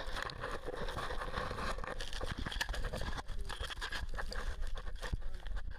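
Footsteps crunching on a gravel track and gear rustling, with rubbing and handling noise from a body-worn camera and a constant low rumble.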